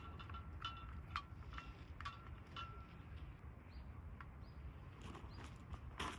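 Light metallic clinks, each with a short ringing tone, about every half second in the first three seconds, over a low steady rumble; a few duller crunching strokes follow near the end.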